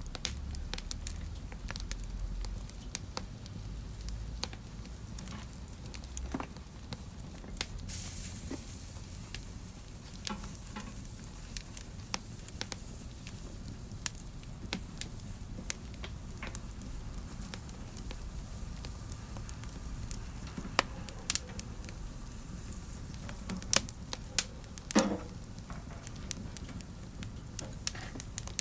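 Wood fire crackling in a fireplace: irregular sharp pops and snaps over a low steady rumble. A brief hiss about eight seconds in, and several louder pops in the second half.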